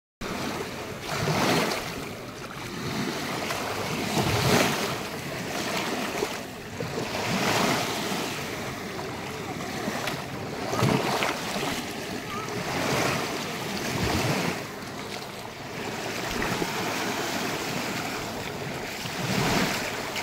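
Small waves lapping onto a sandy shore and washing around the feet in the shallows, surging every two to three seconds, with wind on the microphone.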